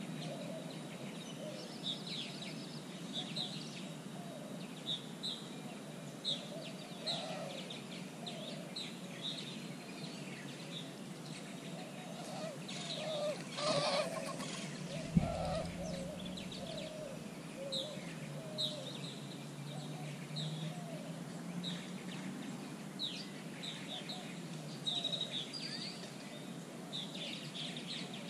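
Plain chachalacas calling, with many short high chirps from other birds throughout. About halfway through, a white-winged dove's wings clatter as it takes off, followed shortly by a sudden low thump.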